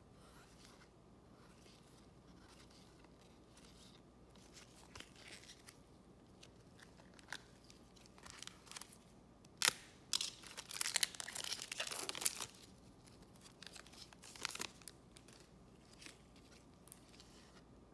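Trading card pack wrapper being torn open and crinkled: a sharp snap about ten seconds in, then a couple of seconds of dense crackling, with lighter rustles of wrapper and cards before and after.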